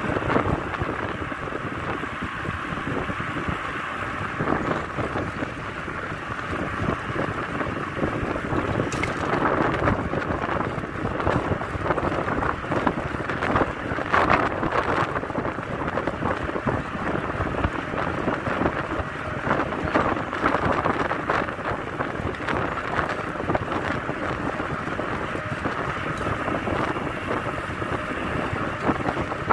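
Wind buffeting a microphone carried on a moving bicycle: a steady, gusting rush of noise that swells and eases.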